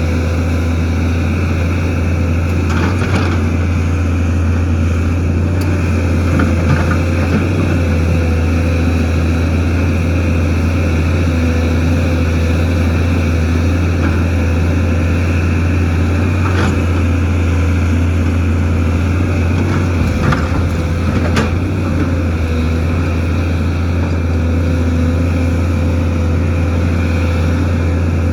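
Excavator's diesel engine running steadily under work, with a few brief sharp knocks scattered through.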